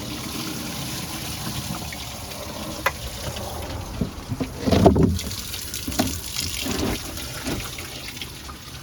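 Watery coolant from the 5.4L V8's cooling system draining out of the unplugged bottom hose into a catch container: a steady stream of splashing liquid. A few short knocks break in, the loudest about five seconds in.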